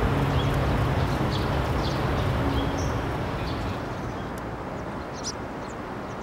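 Steady outdoor background noise with scattered short, high bird chirps. A low held tone fades out over the first three or four seconds, and the overall level falls gently.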